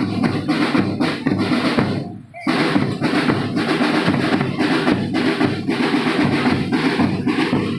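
Marching drum band's snare and bass drums playing a fast, dense beat, with a short break about two seconds in before the drumming starts again.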